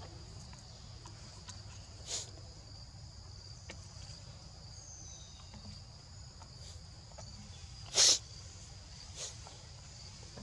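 Steady high-pitched chirring of forest insects, over a low background rumble. A brief, loud, sharp sound cuts in about eight seconds in, and a softer one about two seconds in.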